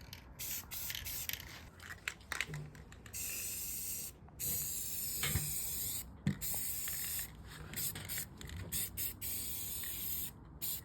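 Aerosol spray paint can hissing: a series of short spurts during the first few seconds, then longer sprays of about one to four seconds each with short breaks between them. A few sharp clicks come through between sprays.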